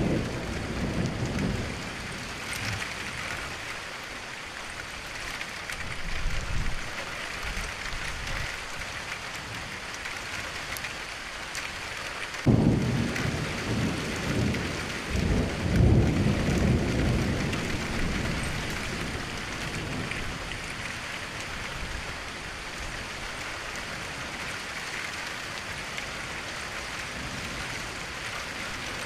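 Steady rain with rolls of thunder; the loudest rumble breaks in suddenly about twelve seconds in, and another follows a few seconds later.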